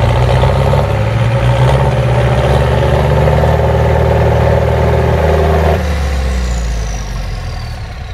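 Belarus 892 tractor's four-cylinder turbodiesel running hard under load, then easing off about six seconds in. As the engine drops, a high turbo whistle slides slowly down in pitch.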